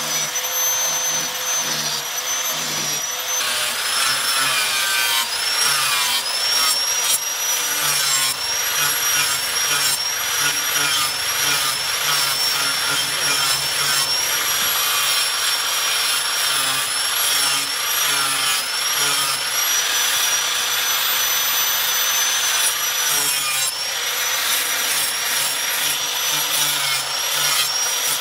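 Electric angle grinder with a flap disc grinding a steel knife blade. Its high motor whine dips in pitch each time it is pressed into the steel and rises again as the load eases, over a steady grinding hiss.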